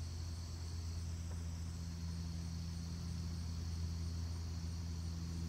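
Insects chirring steadily, with a low steady hum beneath.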